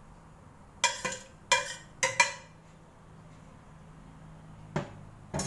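A metal ladle clinking against a stainless steel cooking pot and a serving dish: four sharp, ringing clinks in quick succession about a second in, then two more near the end.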